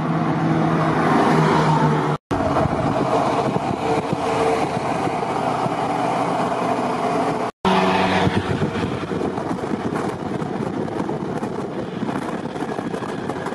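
Eight-wheeled Stryker armored vehicles and a Humvee towing a trailer driving past on a highway: diesel engines running and heavy tyres rolling on asphalt, loudest near the start. The sound cuts out briefly twice.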